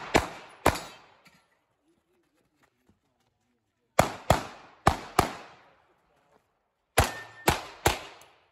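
Compensated Glock 43X 9 mm pistol firing quick shots with short echoing tails. There are two shots, then a pause of about three seconds, then four shots in two quick pairs, then three more shots near the end.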